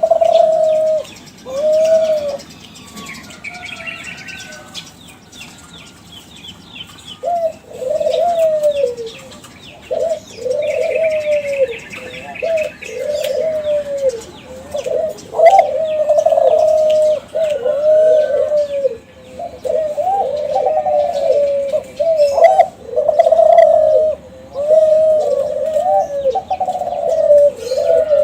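Kelantan-strain spotted dove (derkuku) cooing: a series of repeated arching coos, two near the start, a pause of a few seconds, then a near-continuous run from about seven seconds on. It is song meant as a lure call that sets other doves answering. Small birds chirp faintly in the background.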